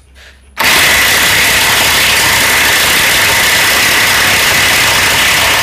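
DCK KPB22C corded electric 3/4-inch-drive impact wrench hammering steadily at full power on a bolt torqued to 700 Nm, trying to break it loose. It starts about half a second in and runs hard for about five seconds.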